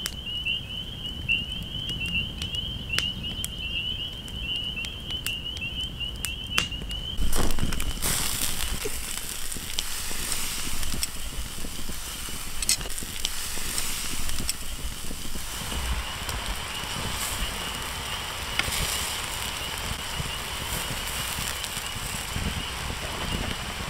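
Wood campfire crackling with sharp pops, over a steady high-pitched trill in the background. About seven seconds in, steaks cooking on a grate over the flames add a denser hiss to the crackling.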